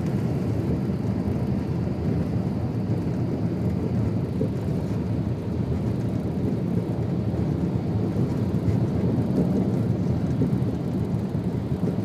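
Steady low rumble of road noise inside a moving car's cabin: tyres on the highway and the engine running at cruising speed.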